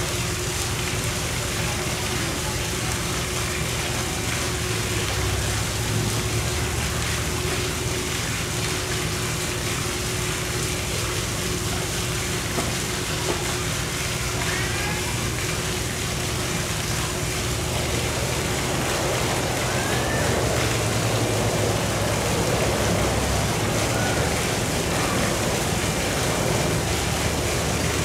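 Steady rush of water around a polar bear's pool, with a few short high chirps near the middle.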